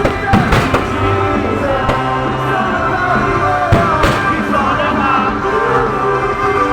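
Fireworks going off with several sharp bangs, a pair near the start and another pair about two thirds of the way through, over loud music playing throughout.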